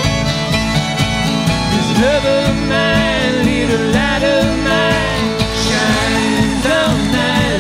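Acoustic string band playing a country-bluegrass song live: fiddle, acoustic guitars and upright bass over a steady rhythm, with a melodic line bending in pitch from about two seconds in.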